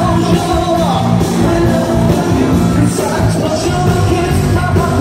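Live band music with several singers singing, loud and steady, recorded from among the audience in a large hall.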